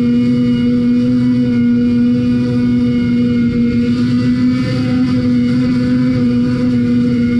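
Snowmobile engine running at a steady high pitch, held wide open as the sled skips across open water.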